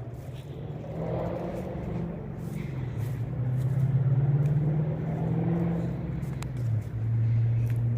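A motor vehicle's engine hums steadily, its pitch rising slowly, dropping suddenly a little before the end, then holding steady.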